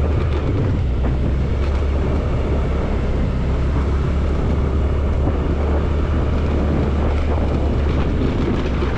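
Honda Activa scooter running steadily along a rough road, with a low engine and road rumble under wind noise on the microphone.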